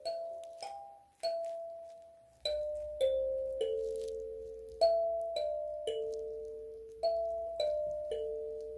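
Kalimba played slowly as a lullaby: single plucked tines ringing and fading one after another, about a dozen notes, in a short phrase that steps down in pitch and then repeats.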